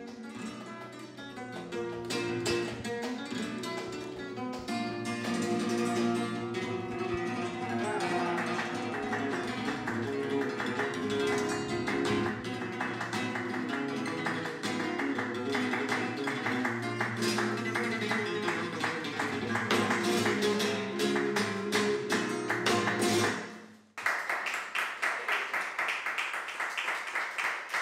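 Background music: flamenco-style guitar playing with many percussive strums. It stops abruptly near the end, and a thinner, higher sound follows.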